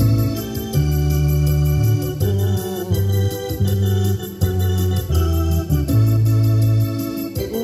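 Electronic keyboard played with an organ sound: sustained chords over held bass notes that change every second or so.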